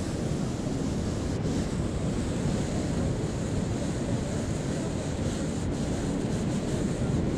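Steady low rumble of wind buffeting the microphone, with ocean surf underneath.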